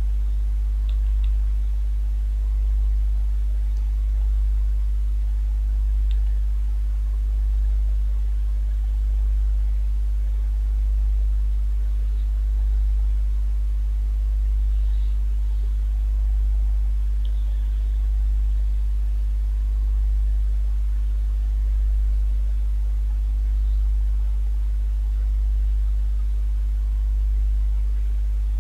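A steady low hum that swells gently about every second and a half, with a few faint clicks.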